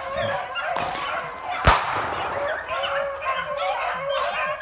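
A pack of beagles baying and yelping continuously as they run a rabbit. A single gunshot cracks about a second and a half in, with a short echo after it.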